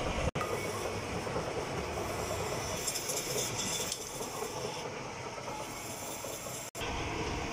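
Metal lathe running and turning the steel end of a truck drive shaft, with a steady mechanical rattle. The sound cuts out for an instant twice.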